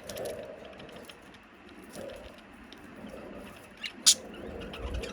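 Budgerigars chattering softly with scattered clicks, a brief chirp and one sharp click about four seconds in.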